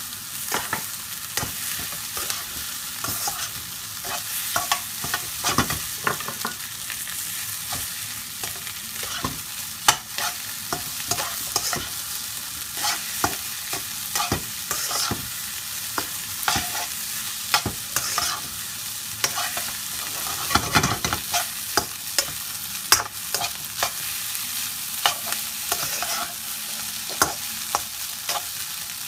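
Fried rice sizzling in a hot wok while it is stir-fried with a metal spoon. The spoon scrapes and clatters against the wok's steel sides in quick, irregular strokes, with a couple of louder knocks.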